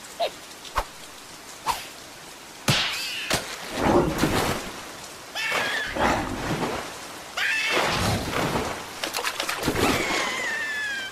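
Cartoon sound effects of big water splashes, several in a row, as a fish leaps out of flood water. Between them come short, squeaky, warbling cartoon cries, and a falling squeal near the end.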